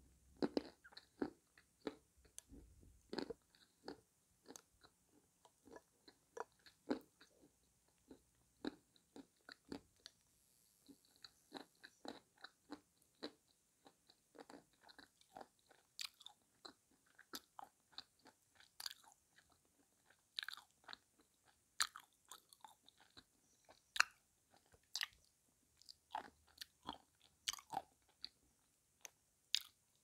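A person biting and chewing dry chunks of edible clay, with irregular crisp crunches, several every second or two.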